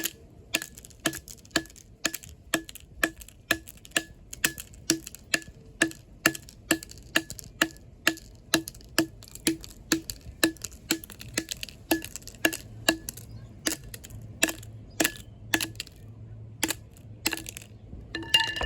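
An LG flip phone being struck over and over to break out its LCD: sharp, ringing knocks about two a second, spacing out in the last few seconds, with the loudest hit near the end.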